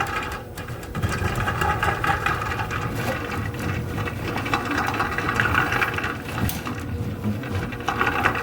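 Powered drain snake running steadily, its motor humming as the spinning cable works through a kitchen sink drain line.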